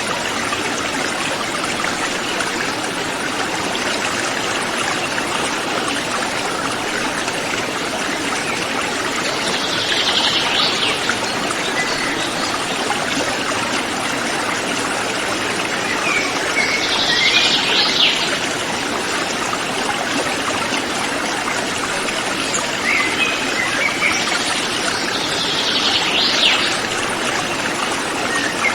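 River water flowing steadily in a continuous rush. A brief high call rises above it three times, about seven to eight seconds apart.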